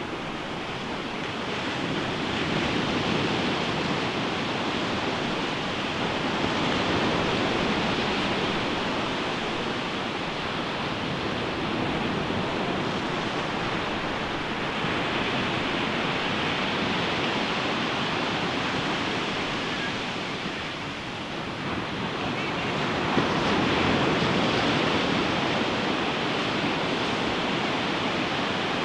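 Ocean surf on a beach: a continuous rush of breaking waves that swells and eases every few seconds.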